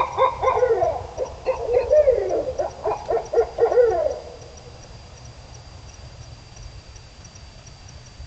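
A rapid run of wavering, rising-and-falling animal calls at night that stops about four seconds in. After that only a faint, steady high-pitched ticking remains.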